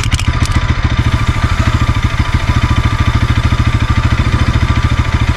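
Bajaj Pulsar NS200's single-cylinder engine idling steadily in gear, turning the rear wheel and drive chain, with a short hiss of chain-lube spray ending about half a second in. The chain runs without noise, freshly lubricated.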